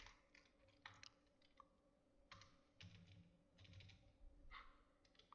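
Faint computer keyboard keystrokes, a few scattered clicks, over a faint steady hum.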